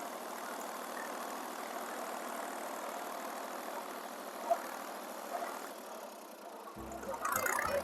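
Ford 4500 tractor-backhoe engine running steadily. Music comes in near the end.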